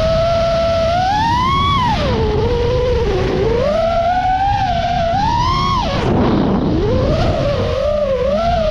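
Mini FPV quadcopter's electric motors whining, the pitch rising and falling constantly with the throttle. A little over six seconds in, the pitch drops sharply low and climbs back.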